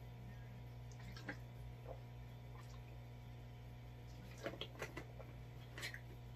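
Drinking from a plastic water bottle: a few soft clicks early on, then a cluster of swallows and bottle crinkles in the second half, over a steady low hum.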